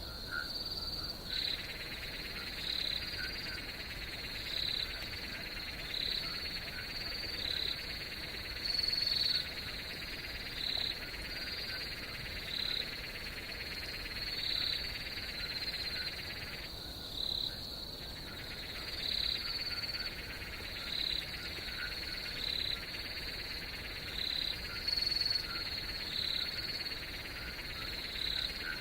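Night chorus of frogs and insects: a steady high trill with a hissing chorus under it, and a short call repeating about every two seconds. The lower chorus drops out for a moment near the start and again near the middle.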